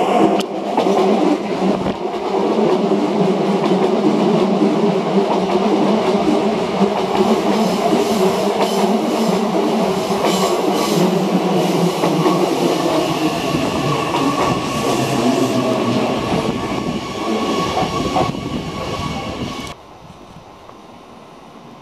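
Electric commuter train running close past as it pulls into the station, its wheels clicking over rail joints with a faint squeal as it brakes. The sound cuts off suddenly near the end.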